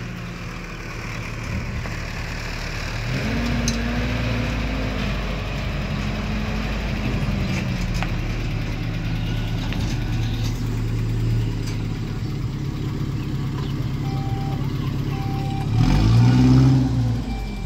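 A motor vehicle's engine running, its pitch climbing about three seconds in and a brief louder rev near the end. A few short, evenly spaced beeps sound in the last few seconds.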